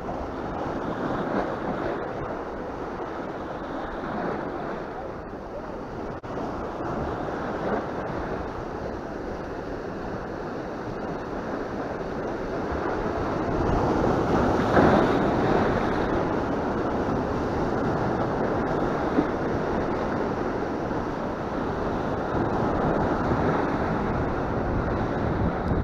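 Sea waves breaking and washing over shoreline rocks, with wind buffeting the microphone. The surf swells louder about halfway through.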